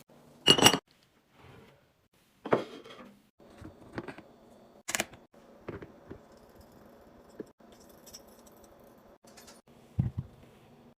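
Packaging and containers being handled and set down during restocking: scattered sharp clicks, taps and short rustles, with a low knock near the end.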